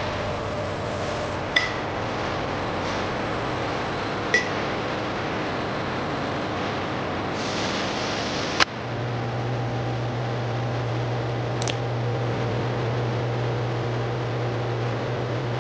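Steady processing-line machinery noise with two light glassy clinks in the first few seconds. A sharp click comes about halfway through, and a low steady hum starts with it and runs on.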